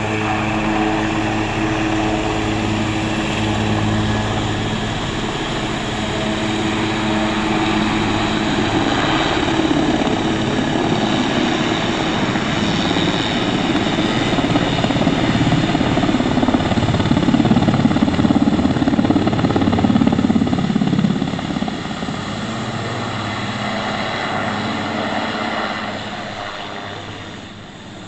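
Super Puma twin-turbine military helicopter taking off: steady turbine and rotor noise that grows louder as it lifts off and climbs, then fades near the end as it flies away.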